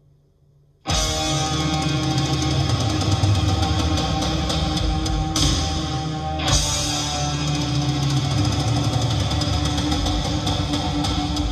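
Rock music with distorted electric guitar and drums, played back through a two-way car audio system. After a faint, nearly silent opening, the full band comes in abruptly about a second in and plays loudly from there.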